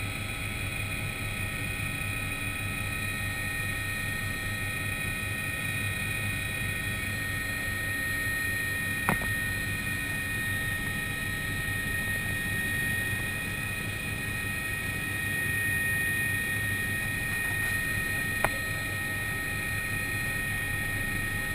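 Helicopter in flight, heard from inside the cabin: a steady high whine over a low rotor drone. Two short sharp clicks come about nine seconds apart.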